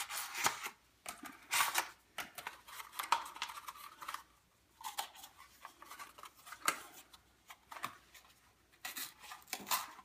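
Paper rustling and crinkling in short, irregular bursts as a paper-cone egg-drop capsule with plastic drinking straws through it is handled, pulled apart and unfolded.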